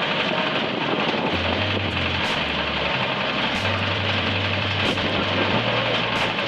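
The 16 hp diesel engine of a one-bag concrete mixer runs steadily, with the mixer turning. Background music with a stepping bass line plays over it.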